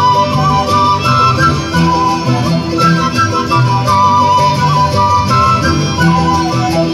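Live acoustic folk ensemble playing: violins and woodwinds carry a wavering melody over strummed guitars and a bass drum with cymbal keeping a steady beat.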